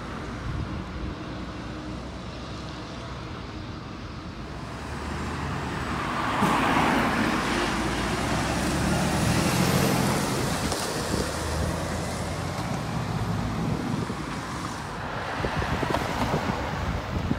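DAF refuse truck's diesel engine and tyres as it drives past, growing louder as it approaches, loudest about six to ten seconds in, then fading as it pulls away.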